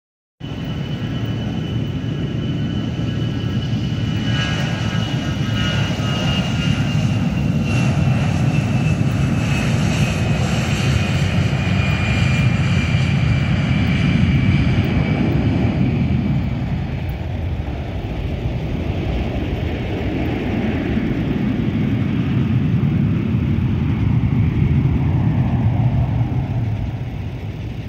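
Airbus A320 jet engines at takeoff power as the airliner rolls down the runway and climbs away. A steady deep rumble carries a high whine that slowly falls in pitch over the first half.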